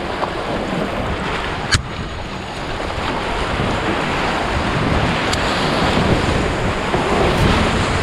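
Rushing whitewater of a spring-flooded river rapid, a dense steady roar that builds slowly louder, with wind buffeting the microphone. A single sharp knock about two seconds in, and a fainter one a few seconds later.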